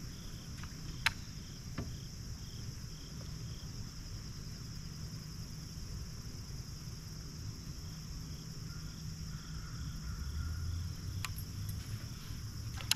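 Crickets and other insects chirping steadily, with a faint pulsing chirp about twice a second. A few sharp clicks break in, the loudest about a second in and two more near the end.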